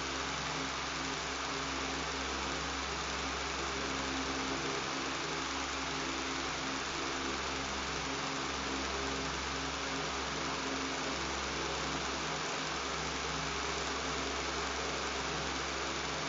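Electric fan running steadily: an even rushing hiss over a constant low motor hum and buzz, with no change in level.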